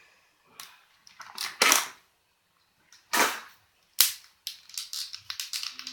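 Pop vinyl figure's cardboard box and plastic insert being opened and handled: several short scraping rustles, a sharp snap about four seconds in, then a run of quick small clicks and crinkles.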